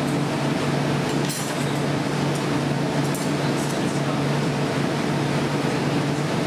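Steady roar and hum of a glassblowing studio's furnaces, burners and fans, with a few faint clinks of tools or glass.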